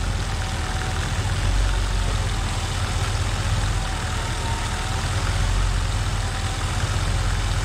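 1972 International Scout engine on Hamilton throttle-body fuel injection idling steadily at about 600 RPM, held by the idle screw alone with the idle air control valve unplugged.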